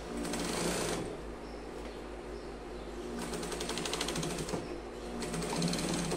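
Industrial straight-stitch sewing machine sewing a trouser hem in three short runs of rapid even stitching: one near the start, a longer one past the middle, and another near the end.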